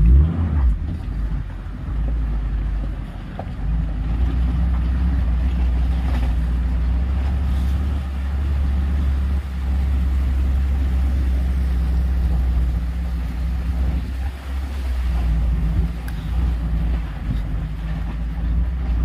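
Maruti Gypsy's engine running as a steady low drone while the vehicle drives over a rocky riverbed, easing off briefly about three seconds in and again about fifteen seconds in.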